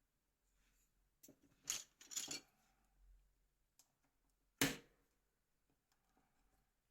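A few light clicks and clatters of small hard parts being handled on a work surface, followed by one sharper knock about four and a half seconds in.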